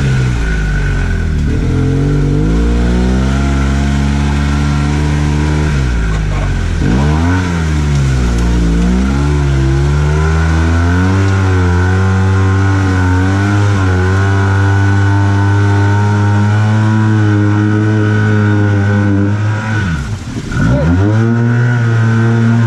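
Arctic Cat Wildcat Trail 700 side-by-side's single-cylinder engine heard from inside the cab while driving off-road, revving up and down. The revs drop off sharply about a second in, again about seven seconds in and near the end, and hold high and steady in the middle, with a steady high whine alongside.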